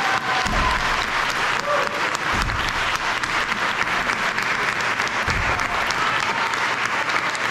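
Audience applauding steadily at the close of a stage performance.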